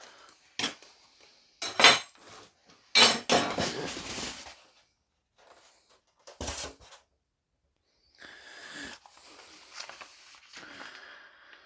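Parts and packaging being handled while unpacking a tool box: a few knocks and light metal clinks in the first half, then paper or plastic packaging rustling near the end.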